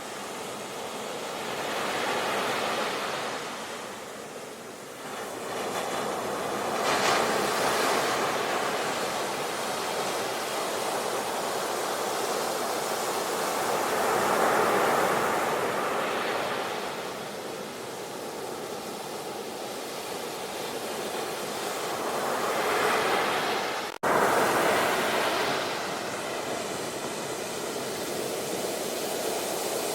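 Ocean waves breaking on a shore, the surf swelling and falling away every few seconds. About three-quarters of the way through there is a sudden brief dropout, like a splice in the recording, before the surf comes back louder.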